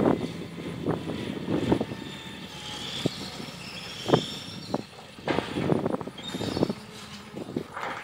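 Tracked excavator working, with brief high metallic squeals and creaks a few seconds in over irregular knocks and thumps.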